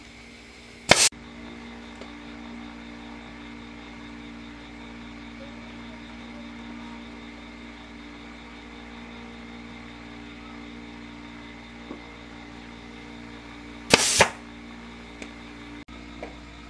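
Staple gun firing two sharp, loud shots, about a second in and again near the end, driving staples through a seat cover into a motorbike seat's plastic base. A steady low hum runs underneath, with a few faint clicks of handling.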